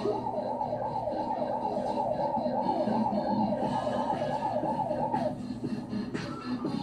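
A siren-like warbling tone, sweeping up and down about three times a second, playing from a television's soundtrack over lower background sound; it stops about five seconds in.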